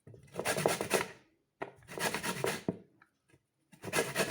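Lemons being grated on a hand grater to take off the yellow zest: long rasping strokes, about one every second and a quarter, with brief pauses between them.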